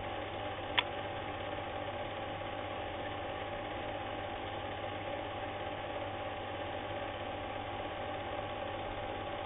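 8mm film projector running: a steady motor hum and mechanical whirr, with one sharp click about a second in.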